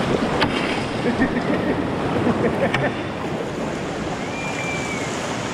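River rapids rushing and splashing around an inflatable kayak as it is paddled downstream, with two sharp knocks, about half a second and nearly three seconds in.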